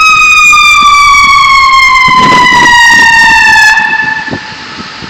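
Loud emergency-vehicle siren wailing, its pitch slowly falling, then dropping away about four seconds in.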